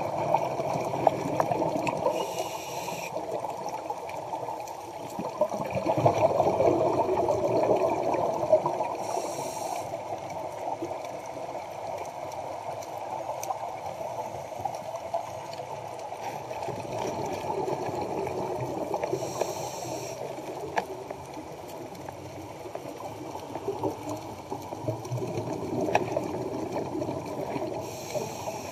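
Underwater sound of a scuba diver's regulator breathing, heard muffled through a camera's underwater housing: steady bubbling and rushing of exhaled air, with a short hiss of breath four times, several seconds apart.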